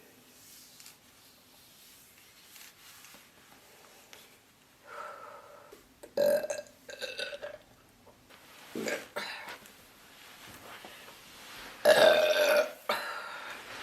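A woman burping several times after a quiet start: a few burps from about five seconds in, and the loudest, longest one near the end.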